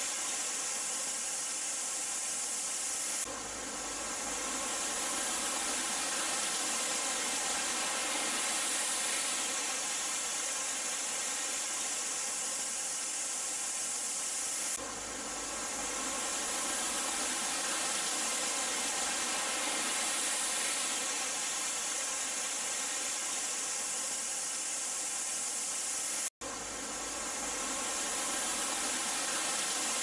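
Steady rushing hiss of a waterfall, breaking off and starting again about every eleven seconds, with a momentary dropout near the end.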